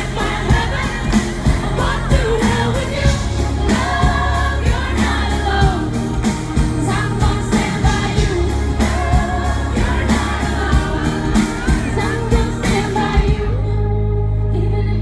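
Female pop singer and live band performing an upbeat pop song over a steady drumbeat. About 13 seconds in the drums and vocal stop, leaving a held low note.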